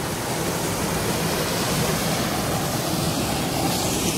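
Small waterfall pouring over rock into a pool: a steady rushing and splashing of water.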